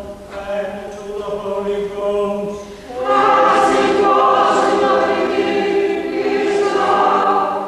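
A church congregation singing a hymn together, swelling louder about three seconds in.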